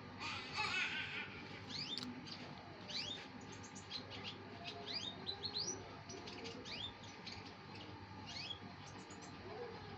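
Canary singing: a steady run of quick, high, upward-sweeping chirps, two to four a second, with a brief burst of noise within the first second.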